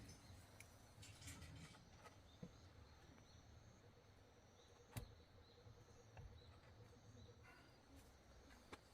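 Near silence, with a few faint scattered ticks and one sharper click about five seconds in.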